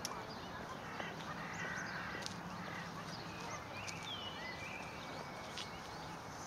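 Newly hatched swan cygnets peeping: many short, high chirps in quick succession, with a few sharp clicks and a steady low hum behind.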